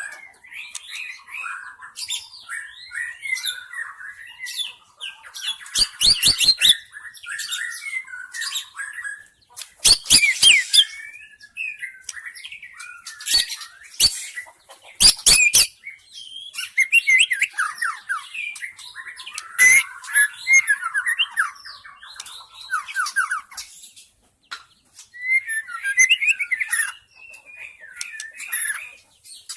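White-rumped shama (murai batu) singing a long, varied run of rapid whistled and chattering phrases, a wild bird's song of the kind used as a lure call. Loud sharp clicks cut in several times, in clusters about 6, 10 and 14 to 15 seconds in, with a short pause in the song near the end.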